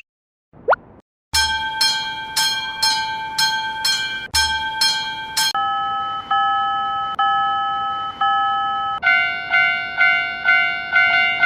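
Railway level-crossing warning bells ringing one after another, each a repeating ding about twice a second: a first bell, then a lower-pitched one from about five and a half seconds in, then a higher-pitched one from about nine seconds in. A faint short rising whistle comes just before the first bell starts.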